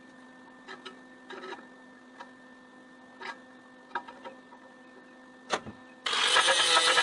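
Scattered light clicks and knocks over a steady shop hum, then about six seconds in a loud power tool starts up.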